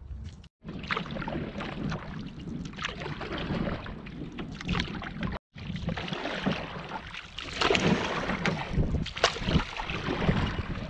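Canoe being paddled across a lake: paddle strokes and water splashing and lapping at the hull. The sound cuts out briefly twice.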